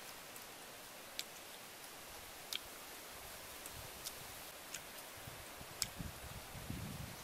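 A person eating a chicken wing by hand: a handful of sharp, sparse clicks from mouth and bone, with soft low chewing noise building near the end, over a steady hiss.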